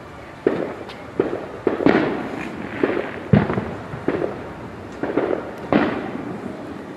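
Fireworks going off: about ten sharp bangs at irregular gaps of half a second to a second, each trailing off in a short echo. The loudest comes about halfway through.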